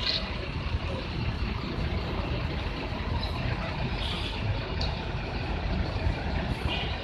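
Bus engines running with a steady low rumble, with a couple of short air hisses about four and six and a half seconds in; no telolet horn sounds.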